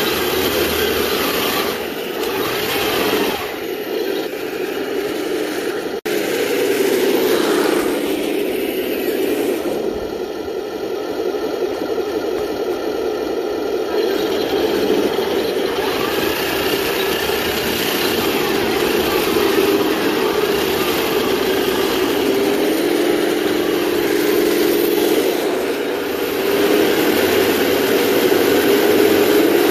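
Simulated tank-engine sound from the onboard sound units of 1/16-scale RC M26 Pershing and Tiger 131 tank models, running steadily while the tanks drive. It is louder near the end.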